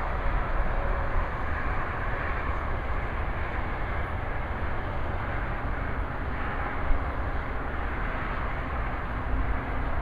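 Steady outdoor rumble of passing traffic mixed with wind on the microphone, with one brief sharp thump about seven seconds in.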